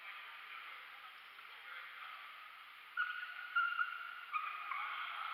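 Reverberant sports-hall ambience, with athletic shoes squeaking on the wooden futsal court in several short, high squeals from about three seconds in.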